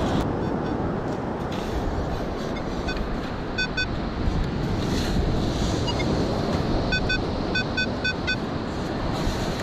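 Metal detector giving short high beeps as it passes over metal: a pair about three and a half seconds in, then a quick run of about five near the end. Underneath, steady surf and wind noise on the microphone.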